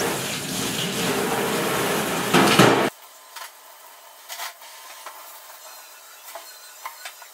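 A loud, steady rushing noise lasts about three seconds and cuts off suddenly. Then come scattered light clinks and knocks of a metal grill tray and dishes being handled in a stainless-steel sink during washing-up.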